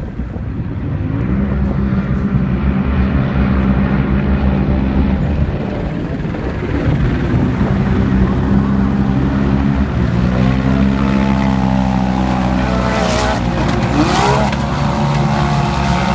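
Engines of off-road race trucks and side-by-side UTVs running hard, holding steady pitches that shift a few times. In the last few seconds a rising whine and two short, loud noisy bursts come over the engines.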